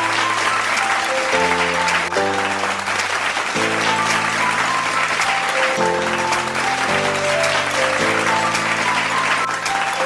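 A large audience clapping, a dense steady applause, with background music of sustained chords that change every second or two.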